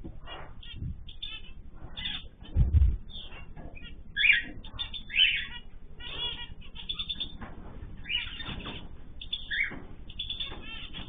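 A mixed group of small cage birds chirping and trilling, with many short overlapping calls. About two and a half seconds in there is a louder flurry of wingbeats.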